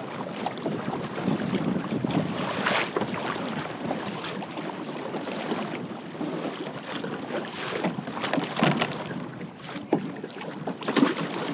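Sea water sloshing and splashing along the side of a kayak, with wind buffeting the microphone; a few sharper splashes stand out, the loudest near the end.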